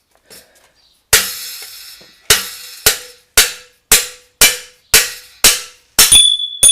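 Hammer blows on a steel drift, knocking a steering-head bearing race out of a motorcycle frame: about ten sharp metallic strikes roughly half a second apart, starting about a second in, each ringing briefly, with a quick double strike and a high ringing near the end.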